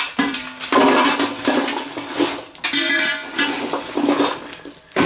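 Burning charcoal pouring out of a metal chimney starter into the metal fire bowl of a swing grill: a loud rushing clatter of tumbling coals on metal.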